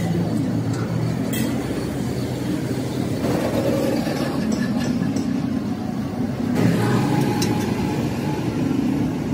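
Engine running steadily, a low rumble that shifts a little partway through, with a faint click about a second and a half in.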